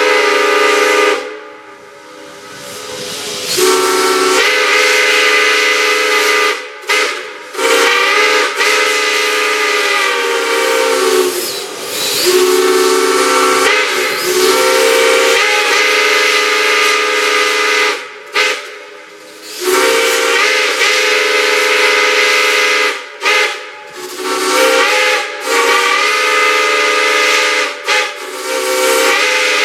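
Multi-chime steam whistle blown in long blasts: a loud chord of several steady tones with a hiss of steam. It is cut off and sounded again several times, and the pitch wavers as some blasts start.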